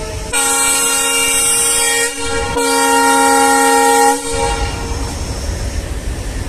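Indian Railways diesel locomotive's horn sounding two long blasts with a brief gap between them, the second slightly louder. After them the locomotive's engine rumbles low as it moves off.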